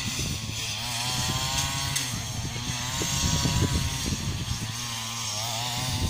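Petrol brush cutter (string trimmer) running at a distance, cutting grass, its engine pitch wavering up and down as it works.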